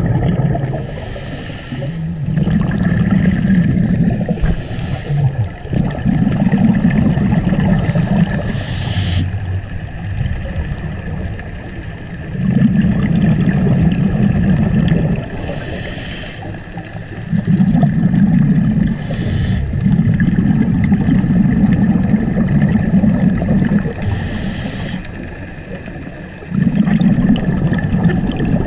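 Scuba diver breathing through a regulator underwater: short hissing inhalations, each followed by a longer low rumble of exhaled bubbles, in a slow cycle repeating about every four to five seconds.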